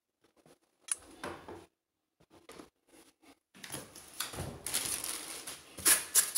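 Handling noise: a sharp click about a second in, then a longer stretch of rustling and clattering from about three and a half seconds in, with a couple of louder knocks near the end.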